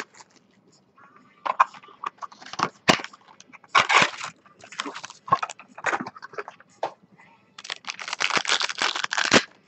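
Trading-card packaging being opened by hand: irregular crackling, crinkling and tearing rustles, busiest near the end.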